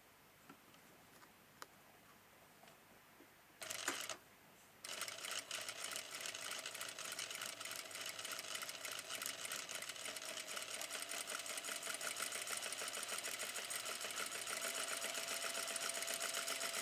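Sewing machine stitching through fabric. After a few faint clicks it runs briefly about three and a half seconds in, stops, then from about five seconds in runs continuously with a steady, rapid stitching rhythm.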